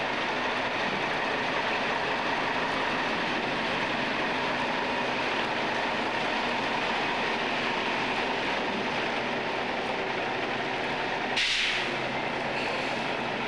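Heavy truck pulling a Culemeyer road trailer loaded with a railway hopper wagon, its engine running and the trailer's many tyres rolling past at walking pace. A short hiss comes about eleven seconds in.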